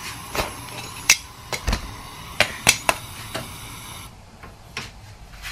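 Metal kitchen utensils knocking and clinking against a pan and the gas stove: a scattered series of about eight sharp clicks, over a steady hiss that drops away about four seconds in.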